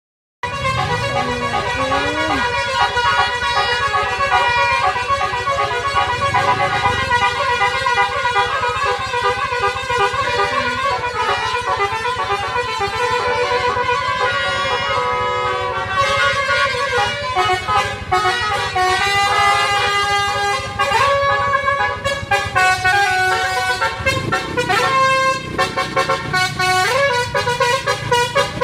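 Basuri 'telolet' multi-tone bus air horn playing melodies, its notes cut into short choppy bursts that switch pitch rapidly.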